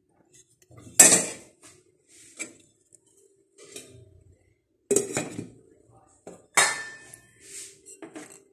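A serving utensil clattering against a pot and a ceramic plate as braised chicken feet are dished out. There are three sharp clanks, about a second in, about five seconds in and about six and a half seconds in, with softer knocks and scrapes between them.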